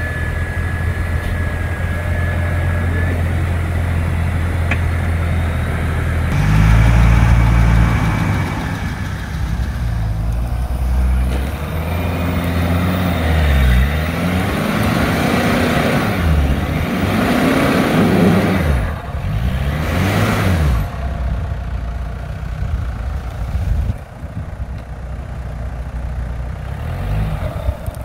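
Jeep Wrangler's engine driving slowly off-road under load. It runs steadily at first and is then revved up and down several times from about twelve to twenty seconds in, before dropping back to a lower, quieter run.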